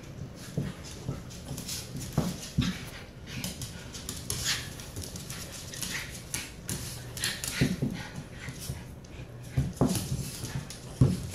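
Dogs play-fighting: short play growls and whines scattered through, with claws clicking and scrabbling on a hardwood floor.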